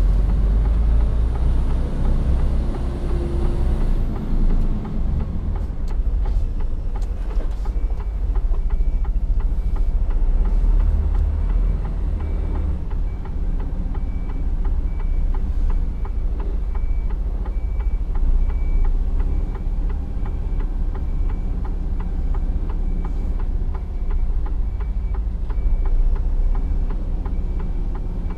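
Mercedes-Benz Actros truck's diesel engine running at low speed, heard from inside the cab, with a reversing alarm beeping evenly from about eight seconds in.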